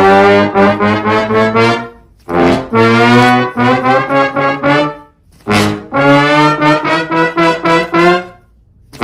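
A brass instrument playing three short phrases of quick, repeated notes, each about two to three seconds long with a brief pause between them.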